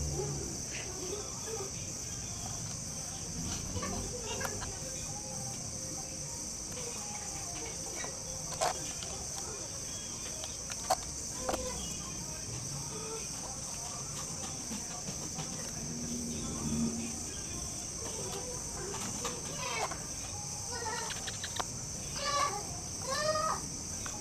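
Steady high-pitched insect chirring in the background, with a couple of sharp clicks from small tools handled on the bench and a few short bird calls near the end.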